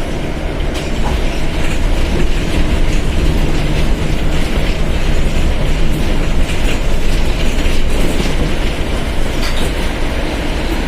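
Mercedes-Benz OF1721 bus's diesel engine running steadily while under way, with road noise and light rattling clicks from the bus body.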